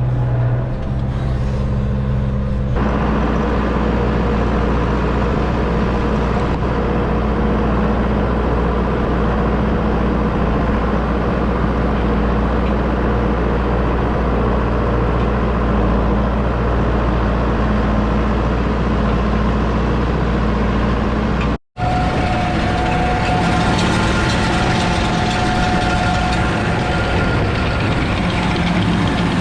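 Tractor engine running steadily under load while pulling a hay baler through slough hay. It grows louder and fuller about three seconds in, and drops out for an instant about three-quarters of the way through.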